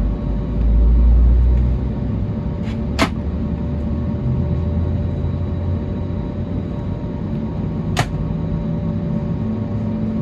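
Steady cabin noise of an Airbus A320neo airliner on the ground: a low rumble with a faint steady hum, swelling briefly near the start. Two sharp clicks sound about five seconds apart.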